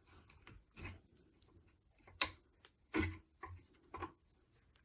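A few light clicks and knocks of small metal parts being handled, the sharpest about two seconds in, as the opened-up air suspension compressor's motor and piston are turned over by hand.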